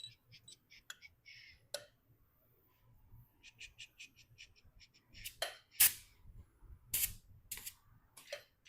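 Valve spring compressor and steel valve-spring retainers and locks clicking on a 5.3 V8 cylinder head as a new valve spring is compressed and its locks set: two quick runs of light ticks, about five a second, then several sharper metal clacks, the loudest about six seconds in.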